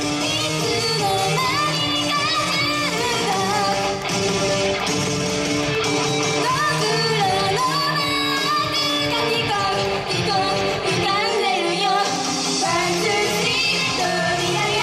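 Pop song performed live: voices singing a melody over a loud, continuous band backing track.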